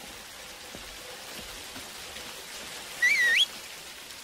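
Steady rain falling, and about three seconds in a single short, loud human whistle that wavers and then sweeps sharply upward: a call to the farm's sheepdog.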